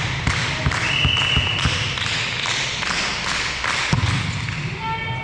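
A run of quick thuds in a sports hall during a volleyball match, about three a second for the first couple of seconds, with a brief high tone about a second in and a single heavier thud near the four-second mark.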